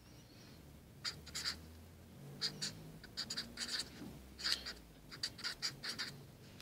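Felt-tip marker writing on paper: short, scratchy strokes in three quick groups as words are written out.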